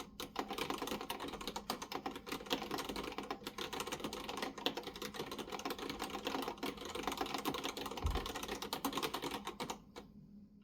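Typing on a Maltron L90 ergonomic keyboard with Cherry MX Black linear switches: a fast, continuous clatter of keystrokes that stops shortly before the end.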